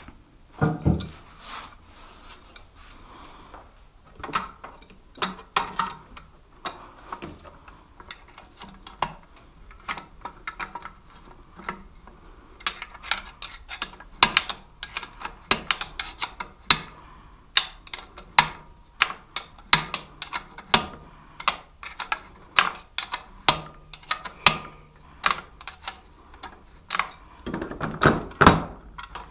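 Adjustable spanner working a bolt on a monkey bike's engine mounts: many sharp metal clicks and clinks as the spanner is refitted and turned in short strokes. They are sparse at first, come about two or three a second from about halfway, and bunch up louder near the end.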